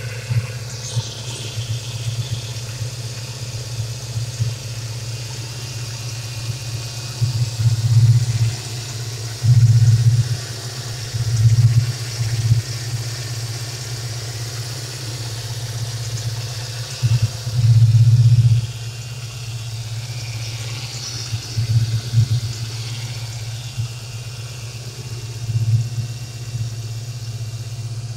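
1995 Ford Mustang GTS engine idling steadily on a newly replaced idle air control valve, a steady low hum that swells louder for about a second several times.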